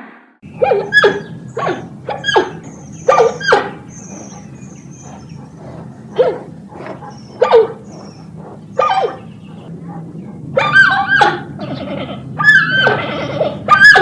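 An animal giving short, repeated bark-like calls and yelps, coming closer together near the end, over faint high chirps.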